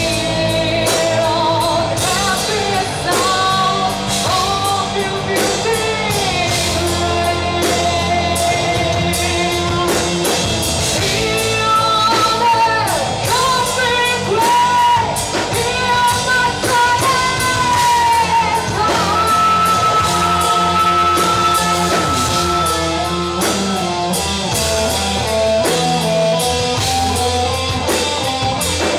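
Rock band playing live: a singer over drums, bass and guitar, at a steady loud level.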